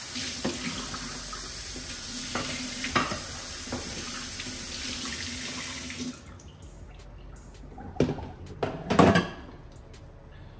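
Kitchen tap running into a sink as food is rinsed, with light knocks, shut off abruptly about six seconds in. Then a few clattering knocks of a plastic tray being handled, the loudest about nine seconds in.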